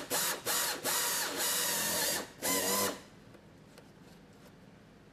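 Power drill running while re-drilling a hole through a rebuilt plastic bumper tab. It gives a steady run of about two seconds with a wavering pitch, then one short burst, and stops about three seconds in.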